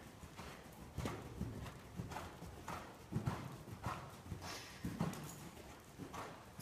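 Hoofbeats of a ridden horse on the sand footing of an indoor arena: a steady rhythm of muffled thuds, about one every half second.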